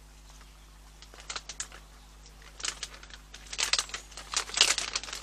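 Dried parsley being handled and sprinkled over the crab: short, dry crinkling rustles in several clusters, loudest near the end.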